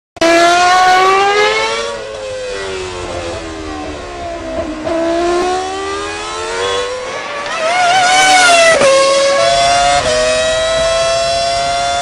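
Formula One car's high-revving Honda V10 engine at racing speed. Its pitch climbs, falls away in steps as it slows and shifts down, climbs again, drops sharply with a gear change, then holds high and rises slowly.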